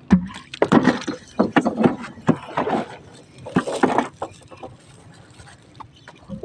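Handling noise from a collapsible net crab trap being hauled up and handled on a small boat: a run of short knocks, scrapes and rustles that thins out after about four and a half seconds.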